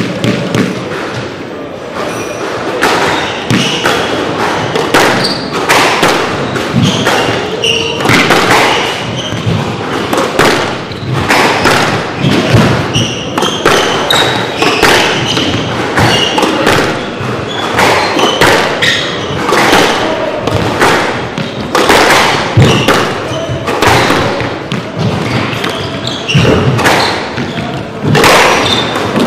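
Squash rally: the hard rubber ball cracking off rackets and thudding against the front wall and floor in quick, irregular succession, with sneakers squeaking on the wooden court floor.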